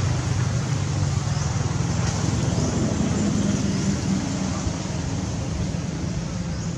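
Steady low rumble of a running motor-vehicle engine under a constant hiss, easing slightly in level about four seconds in.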